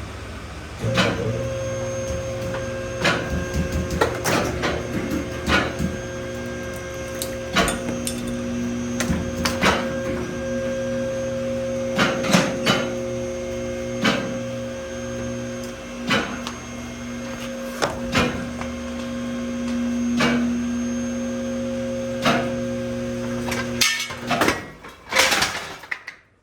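The electric pump motor of a two-post car lift runs with a steady hum, with irregular sharp knocks and clacks over it. It stops a couple of seconds before the end, followed by a few last knocks.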